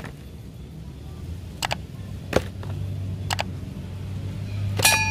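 Hard plastic toy animal figures clicking and knocking against each other as they are picked up and dropped into a container: a few single sharp clicks over a steady low hum. Near the end there is a quick cluster of clicks and a short ringing chime.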